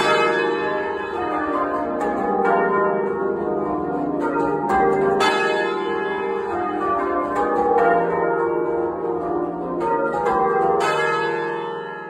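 Carlisle Cathedral's bells, hung for full-circle change ringing, being rung in rounds and heard close up in the belfry. The bells strike one after another, their tones overlapping and ringing on, and the sound dies away near the end.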